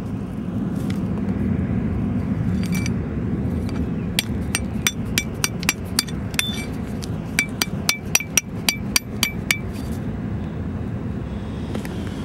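Scrap metal being tapped: a run of sharp, ringing metallic clinks at a clear pitch, about four a second, starting about a third of the way in and stopping well before the end, over a steady low rumble.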